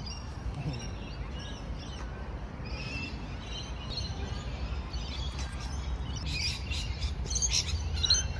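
Birds chirping and twittering in trees, many short high calls that get busier and louder over the last couple of seconds, over a steady low background rumble.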